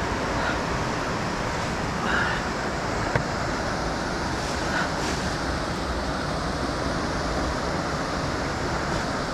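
Steady rushing of whitewater from the Youghiogheny River's Dartmouth Rapids. A few faint, short, high sounds come over it.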